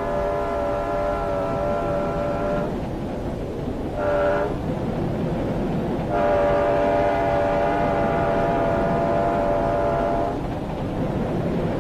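Locomotive horn blowing three blasts, long, short, long, over the steady rumble of a moving train.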